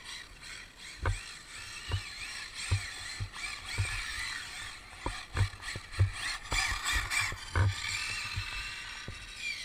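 Arrma Limitless 1/7-scale RC car's 1200KV brushless motor and drivetrain whining, the pitch rising and falling as the throttle changes, with repeated short dull thumps.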